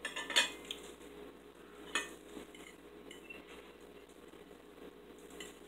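Metal forks clinking and scraping against ceramic dinner plates while eating, with a cluster of clinks at the start and another sharp clink about two seconds in, then softer scraping.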